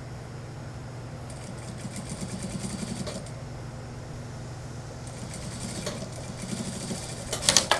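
Industrial lockstitch sewing machine stitching in two short runs, with a fast, even needle rhythm over a steady low hum. The first run starts about a second in and the second about five seconds in. There are a few sharp, loud clicks near the end.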